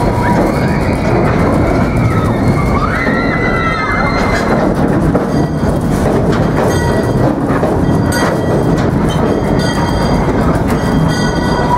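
Steam train running on its track with a steady loud rumble. In the first few seconds its wheels squeal in rising and falling tones, as on a curve, and sharp clicks and knocks come through in the second half.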